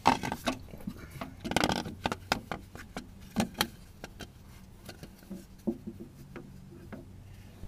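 Irregular clicks, knocks and scraping of a handheld action camera rubbing and bumping against rubber hoses and parts as it is worked into a car's engine bay, with denser scraping at the start and about a second and a half in.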